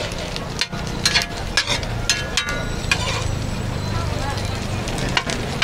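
Metal spatula scraping and clinking against a large flat steel pan as pieces of food are stirred and scooped, in irregular sharp clicks over frying sizzle, with background chatter.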